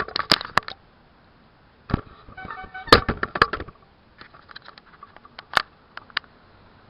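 Handling noise: a string of sharp clicks and knocks in irregular clusters, with a couple of lone knocks near the end.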